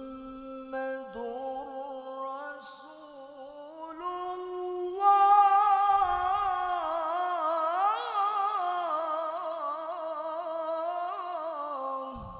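Male Quran reciter (qari) chanting one long, ornamented melismatic phrase in a high voice. The pitch climbs in steps over the first few seconds and the voice swells louder about five seconds in, then breaks off near the end.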